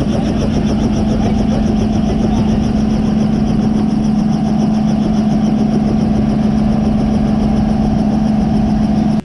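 Helicopter running on the ground: a loud, steady engine and rotor hum with a rapid, even pulsing.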